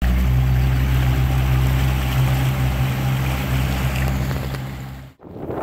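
Yamaha 70 hp outboard motor running steadily at speed, with water rushing in the wake. It fades out about five seconds in, and wind noise on the microphone takes over near the end.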